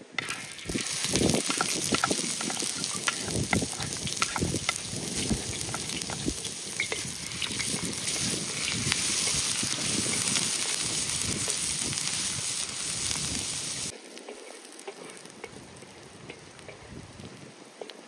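Food frying, a steady sizzle with many small crackles. It cuts off abruptly about fourteen seconds in, leaving a fainter crackle.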